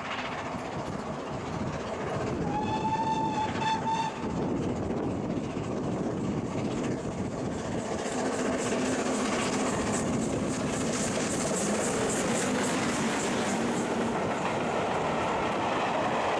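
Steam locomotive hauling coaches approaching and passing close by, sounding a short whistle about two and a half seconds in. Through the second half the noise grows into a steady, rapid rhythmic clatter as the coaches run past.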